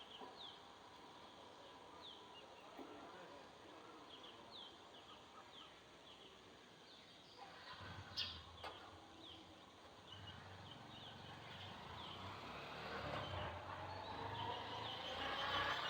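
Sparrows chirping: a steady run of short, high, quickly falling chirps, one or two a second. A sharp click comes about eight seconds in, and a low background rumble grows louder toward the end.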